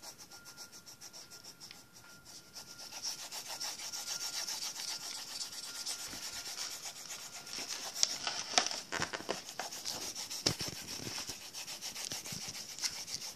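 Colored pencil scratching rapidly back and forth on paper while shading in a coloured area. A few sharp knocks and bumps come in the second half.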